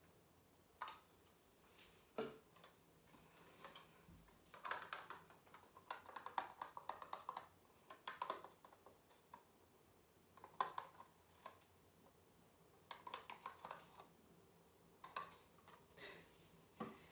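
Faint scattered clicks, taps and scrapes of small plastic paint cups and a stirring stick being handled, with a quick run of clicks about six to seven seconds in.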